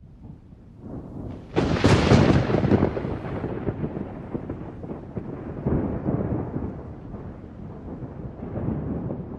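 A thunderclap: a low rumble builds, a sharp crack hits about a second and a half in, and a long rolling rumble follows, swelling again twice as it goes on.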